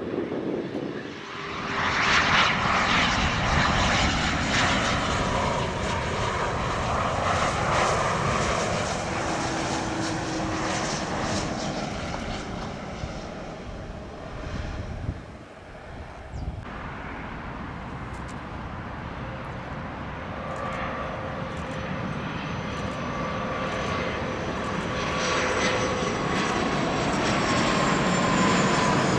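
Gulfstream business jets' turbofan engines on landing approach: a steady jet rumble with a faint whine that bends slowly in pitch as the first jet passes. About halfway through it cuts off abruptly and a second jet's approach takes over, growing louder toward the end.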